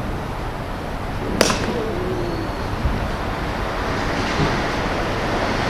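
A single sharp crack about a second and a half in, over a steady rushing noise like wind on the microphone.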